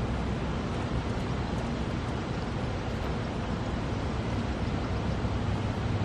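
Steady outdoor background noise: a low rumble under an even hiss, with no distinct calls or knocks.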